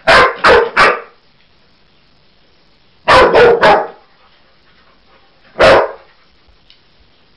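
Dog barking in short sharp barks: three in quick succession, then three more about three seconds in, then a single bark near the end.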